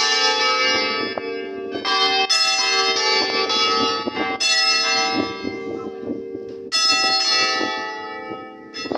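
Church bells swung full circle in Spanish volteo style, with La Jove turned by hand on a rope. A loud strike comes every two seconds or so, each one left ringing with many overlapping tones, and lighter knocks sound in between.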